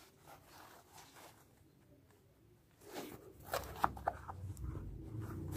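A New Balance Fresh Foam Arishi v3 running shoe being handled and flexed in the hands. It is faint at first, then from about three seconds in there is rustling with a few sharp clicks.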